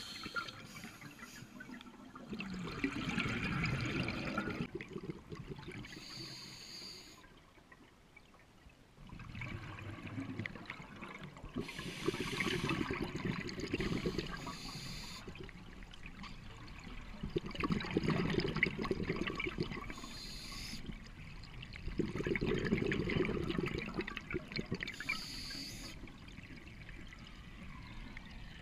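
Scuba diver breathing underwater through a regulator: a short hiss on each inhale, then a longer burst of bubbling exhaust on each exhale. About four breaths, one every five to six seconds, with a brief quiet pause near the first third.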